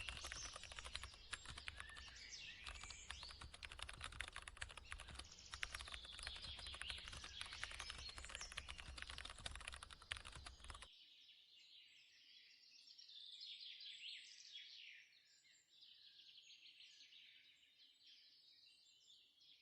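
Fast computer keyboard typing with birds chirping behind it. The typing stops about halfway through and the birdsong carries on alone, faintly.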